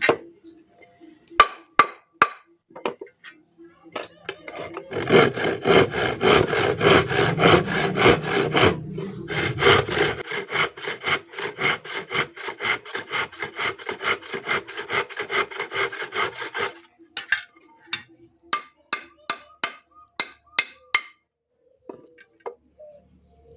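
Hand saw cutting through wood in a long run of quick back-and-forth strokes, with a few separate taps and clicks before it starts and after it stops.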